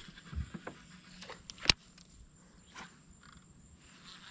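Quiet outdoor ambience with a steady high insect-like drone. Scattered sharp clicks and a few soft knocks, likely from fishing tackle or the boat being handled, sit over it, the loudest a single sharp click a little under two seconds in.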